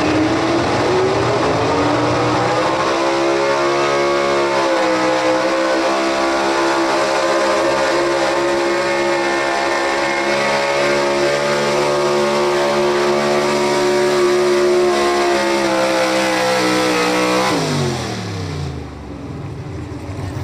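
Chevrolet Silverado heavy-duty pickup's engine at full throttle pulling a weight sled. The revs climb over the first few seconds, hold high and steady, then fall away sharply near the end as the throttle is let off at the end of the pull.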